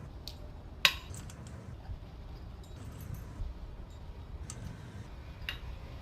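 A few sharp metallic clicks and clinks, the loudest about a second in and another near the end, over a low steady rumble.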